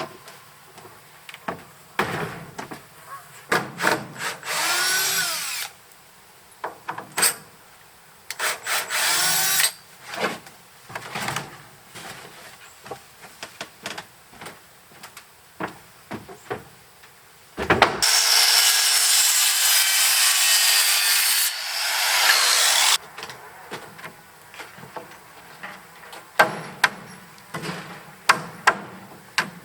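Power drill working in wood, running in several short bursts with its whine rising and falling, and one longer run of about five seconds in the middle. Sharp knocks and clatter of wood being handled come between the bursts.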